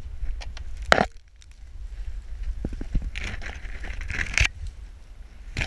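Dry branches and fallen leaves crackling and rustling as someone pushes through brush, with a sharp loud crack about a second in. A low wind rumble sits on the microphone throughout.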